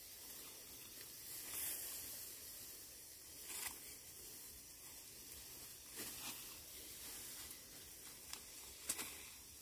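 Faint rustling of dry plant material with about five short, sharp rips or snaps a second or two apart, the loudest near the end.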